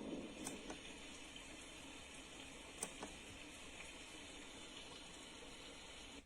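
A faint, steady hiss from the Suright wake-up light alarm clock's speaker, with two small clicks, cutting off suddenly near the end.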